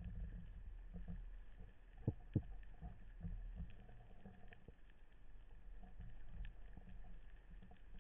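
Underwater sound picked up through a camera housing: a low rumble with scattered faint ticks, and two sharp knocks close together about two seconds in.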